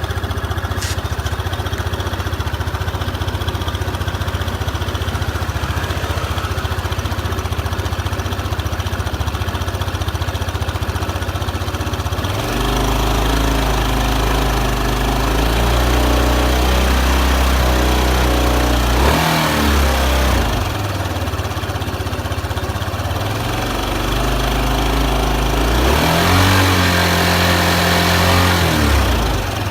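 Small vehicle engine and drivetrain idling steadily, then revved up about twelve seconds in. The revs dip briefly and rise again, then fall back to idle near the end. The sound is recorded as an abnormal noise from the drivetrain.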